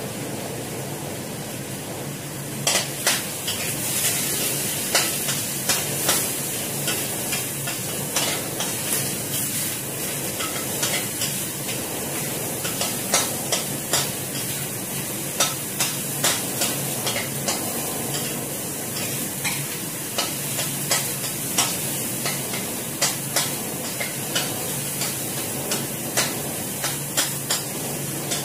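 Metal spatula stirring in a wok over a gas flame, scraping and clinking against the pan in irregular strokes over a steady sizzle of frying; the clinking starts a few seconds in.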